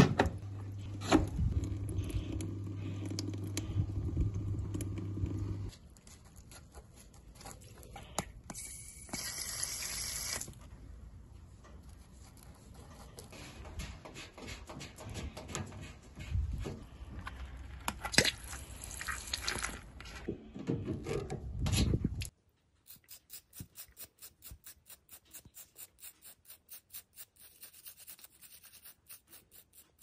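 A steady low hum with a few clicks for the first several seconds, then handling knocks and a brief hiss. In the last seven seconds or so, a toothbrush scrubs the washing machine's mesh water-inlet filter in quick, even strokes, about five a second, brushing out the debris that restricts the water supply.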